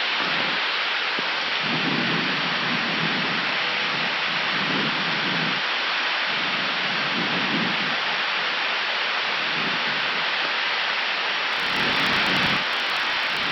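Steady rushing cabin-air and slipstream noise on the flight deck of an Airbus A319 in descent, with a faint, muffled voice talking under it.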